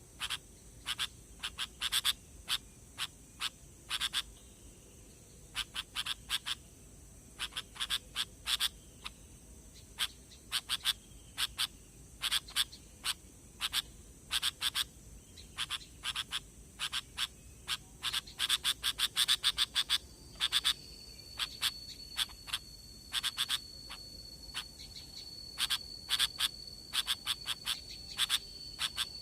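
Sooty-headed bulbul (kutilang) calls from a bird-lure recording: short, sharp call notes in quick irregular clusters. About two-thirds of the way in, a steady high-pitched insect-like whine joins.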